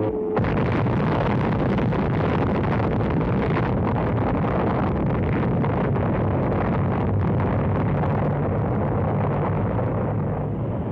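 Long, steady roar of the 1946 Baker underwater atomic bomb blast at Bikini Atoll, on an old newsreel soundtrack. It starts suddenly about half a second in and eases slightly near the end.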